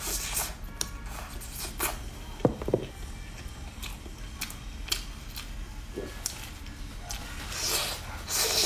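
Close-miked eating of pork ribs: biting into the meat and chewing, with many short wet mouth clicks. Louder bites come near the start and near the end.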